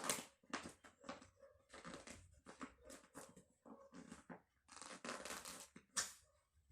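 Paper picture cutouts being pulled out of a workbook page: a run of short, irregular tearing and rustling sounds, fairly faint.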